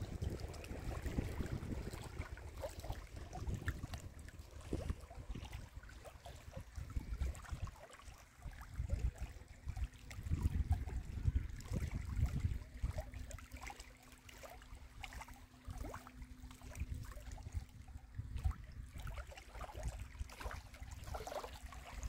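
Small waves lapping and splashing against a rocky lake shore, with wind buffeting the microphone in gusts. A faint steady hum joins about halfway through.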